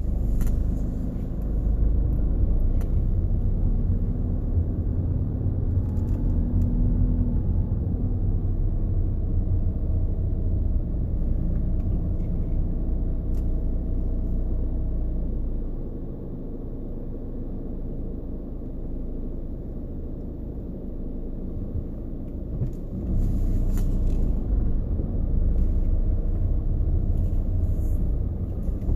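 Low, steady in-cabin rumble of a Volkswagen Jetta TDI driving, road and engine noise, dropping somewhat for several seconds about halfway through before rising again.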